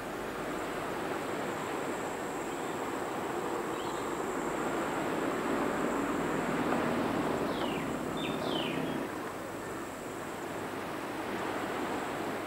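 Roadside outdoor ambience: a vehicle's engine hum swells and fades in the middle, with a few short falling bird chirps over a steady background hiss.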